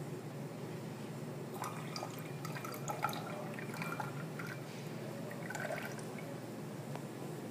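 A thin stream of solution poured into a glass beaker of sulfate solution, splashing and dripping from about one and a half seconds in until about six seconds in, over a steady low hum.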